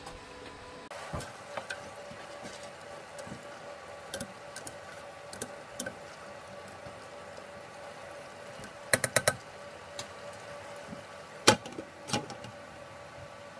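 A metal spoon clinking against a stainless steel cooking pot while stirring, with a quick run of four taps about nine seconds in. Near the end a frying pan is set back on the pot as a lid with a loud knock, followed by a lighter one, over a steady faint hum.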